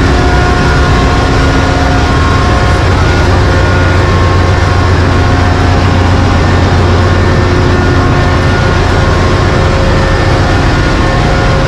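Loud, steady din of a ship's engine room with its machinery running: a constant low rumble with several steady humming tones on top.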